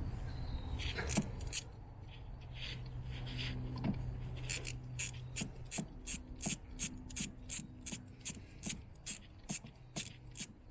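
Ratchet wrench clicking evenly, about three clicks a second, as the bolt of the plastic idler pulley is turned out on a Volvo 3.0T engine. A steady low hum runs under the first half.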